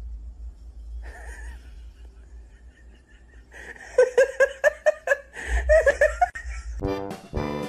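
A person laughing in two bouts of quick, rhythmic pulses, the second bout shorter. Accordion music comes in near the end.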